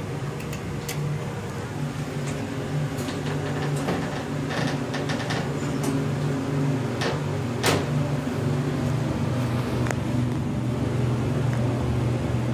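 Elevator car closing its doors and riding up one floor: a steady low hum from the running elevator with scattered clicks and knocks, the sharpest about two-thirds of the way through. The hum grows a little louder and deeper in the second half.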